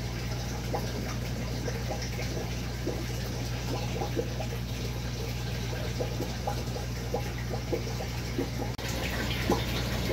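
Aquarium water trickling and splashing steadily with small droplet ticks, over a constant low hum of the tank's filter or pump.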